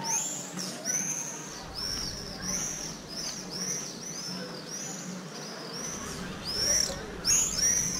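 Small birds chirping: a steady run of high, quick chirps about two a second, several birds overlapping, with louder calls near the end.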